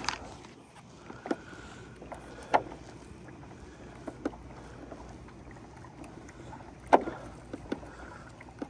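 A pedal kayak's small electric motor runs with a faint steady whine over the hiss of water along the hull. A few sharp knocks come through, the loudest about seven seconds in.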